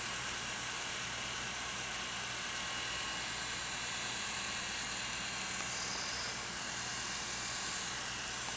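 DeJur 750 film projector running steadily at low speed with its covers off: a constant whir from its brush motor driving the exposed gears, cogs and chain drives.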